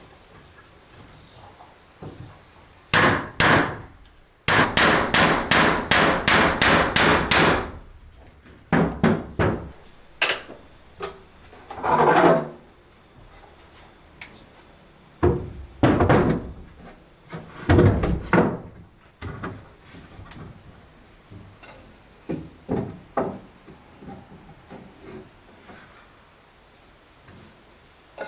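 Hammer blows on wood: a quick run of about eight strikes, roughly three a second, with scattered single knocks before and after. Steady insect chirring runs underneath.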